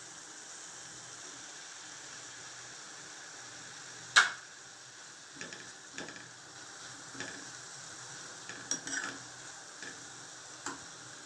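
Shredded vegetables sizzling softly in a kadai, with one sharp metal clink about four seconds in, then scattered light scrapes and taps as cooked toor dal is stirred into them.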